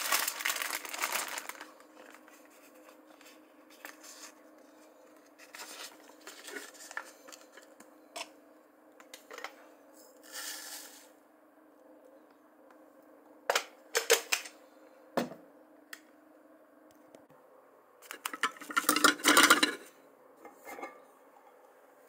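Handling noises from setting up a plastic pour-over coffee dripper: a paper filter rustling and ground coffee being added, in several short bursts of rustle and clatter, the loudest near the start and again near the end. A faint steady hum runs underneath and stops about three-quarters of the way through.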